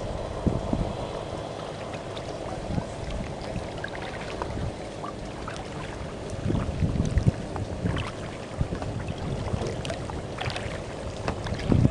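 Wind buffeting the microphone over open harbour water, with splashes and drips from a kayak paddle stroking through the water; the wind gusts up twice, about halfway through and near the end.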